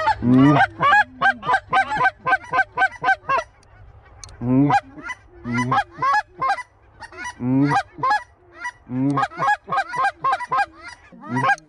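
Geese honking: many short honks and clucks in quick succession, higher calls mixed with deeper honks, with a brief lull about four seconds in.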